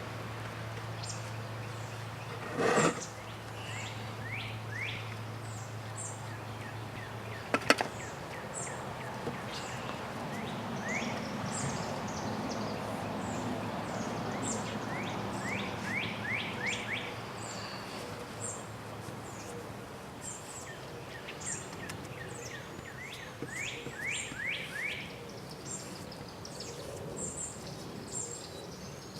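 Small birds chirping in short repeated calls over a steady background hiss, with a low hum that cuts off about eight seconds in. A dull thud about three seconds in and a sharp click just before the hum stops are the loudest sounds.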